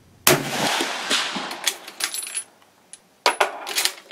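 A loud sudden report about a quarter second in, dying away over about a second. Then the Springfield 1898 Krag rifle's bolt action is worked: a run of sharp metallic clicks and clacks in two bursts, with a thin ringing clink of metal.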